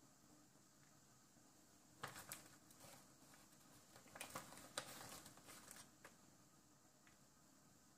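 Faint rustling and a cluster of soft clicks from handling, between about two and six seconds in, over quiet room hiss.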